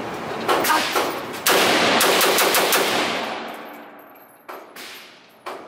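Gunshots echoing in an indoor shooting range: a shot about half a second in, another a second later, then a quick string of about five, whose echo rings out over a second or so. A few fainter shots follow near the end.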